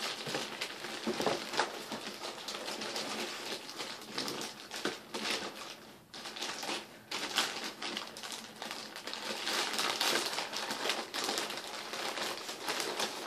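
Packaging crinkling and rustling steadily as it is handled and pulled open, a dense run of small crackles.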